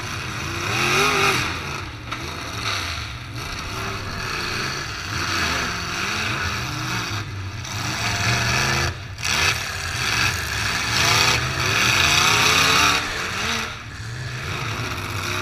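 Several demolition derby cars' engines running and revving, their pitch repeatedly rising and falling as they accelerate and back off.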